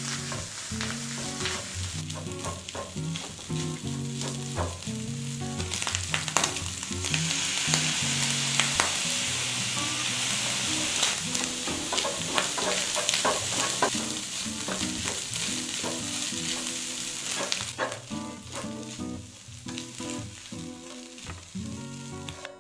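Egg fried rice sizzling in a hot nonstick frying pan while a wooden spatula stirs and scrapes it, with scattered clicks of the spatula against the pan. The sizzle grows louder through the middle and eases off near the end.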